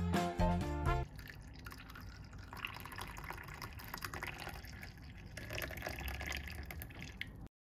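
Background music ending about a second in, then hot milky chai poured in a thin stream into a ceramic teacup: a steady trickling splash that cuts off suddenly near the end.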